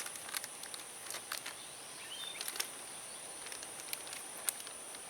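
Insects droning in one steady high pitch, with scattered small clicks and crackles close by.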